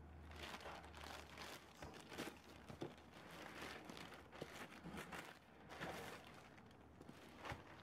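Thin plastic mailer bag crinkling and rustling in irregular bursts, with small clicks and crackles, as it is handled and opened.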